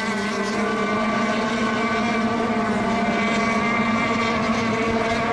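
Radio-controlled racing boat motors running at speed, a steady buzzing drone that holds one pitch.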